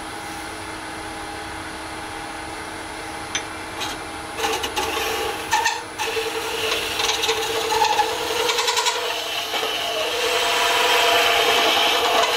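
A lathe runs with a steady hum while a hollowing tool cuts into the spinning cast Alumilite resin globe. Rough, uneven scraping from the tool comes in about four seconds in and gets louder toward the end as the cut deepens.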